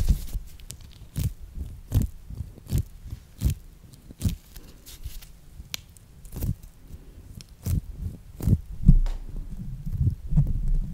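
Mesh-netted squishy stress balls squeezed and kneaded right at a microphone: irregular short squishing clicks, about one or two a second, over soft low thumps that come thicker near the end.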